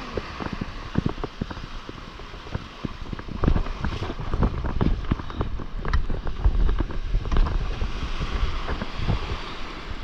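Small breaking waves and shallow whitewater washing and splashing right at the microphone, with wind buffeting it. The splashing and low buffeting grow heavier from about three and a half seconds in.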